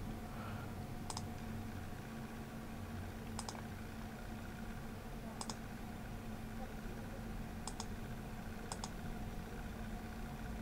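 Computer mouse clicking through a photo slideshow: five sharp clicks spread over about eight seconds, two of them quick double clicks, over a low steady hum.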